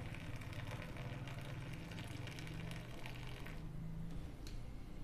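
Hot milk poured in a thin stream into coffee decoction in a stainless steel tumbler, a faint liquid pour that stops about three and a half seconds in, over a low steady hum.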